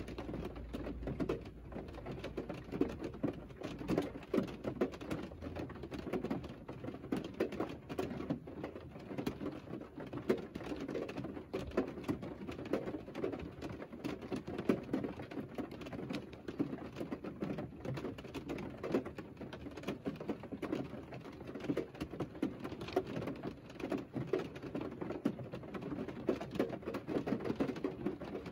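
Rain pattering on a Mercedes car, heard from inside the cabin: a dense, irregular patter of drops that keeps on steadily.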